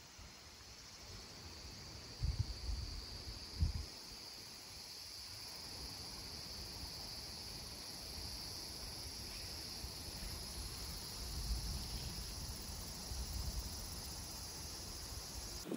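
Insects chirring in a steady, high-pitched drone, with a few low rumbles about two and four seconds in and again later on.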